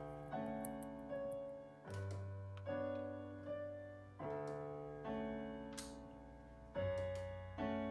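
Solo piano music: slow chords struck about once a second, each ringing and fading before the next.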